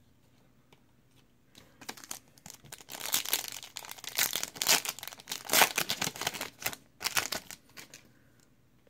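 A foil trading-card pack being torn open and its wrapper crinkled: a crackling run of about six seconds that starts a second or so in and is loudest in the middle.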